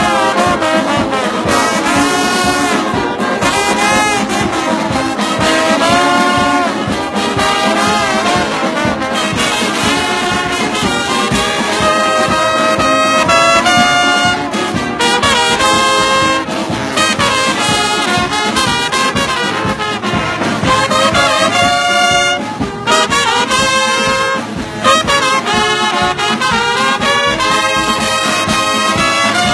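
Band music with brass instruments playing a melody.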